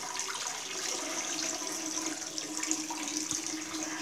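Water running from a tap into a bathroom sink, a steady rush as the basin fills up to overflowing.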